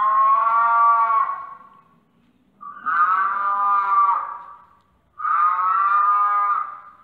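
Cow mooing three times, each moo about a second and a half long with short pauses between.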